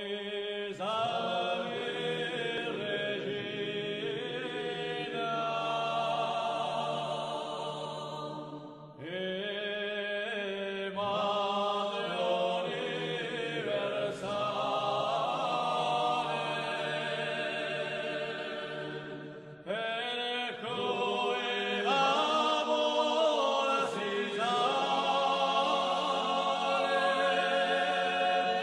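Unaccompanied voices singing a slow chant in long held notes over a low sustained tone. The phrases break off briefly about every ten seconds.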